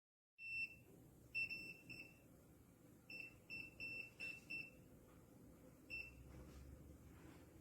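A series of about ten short electronic beeps, all at the same high pitch and irregularly spaced, some in quick runs, over a faint low hum.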